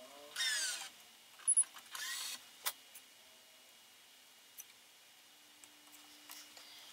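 Badminton string being drawn quickly through the racket's grommets and the weave: two short zipping rushes with falling pitch in the first couple of seconds, then a sharp click and a few light ticks. A faint low hum comes in near the end.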